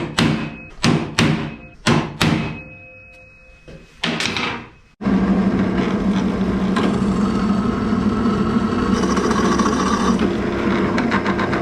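About five sharp knocks with a short ring in the first couple of seconds, then a power cutting tool starts about five seconds in and runs steadily with a low hum, cutting through 40 by 40 steel box section.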